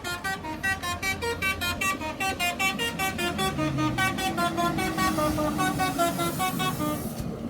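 Bus telolet horn playing a fast melody of short pitched toots, about six notes a second, with a lower sliding tone beneath in the middle; it cuts off abruptly near the end.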